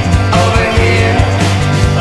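Loud psychedelic rock recording: a full band with a steady, heavy bass line and drum hits.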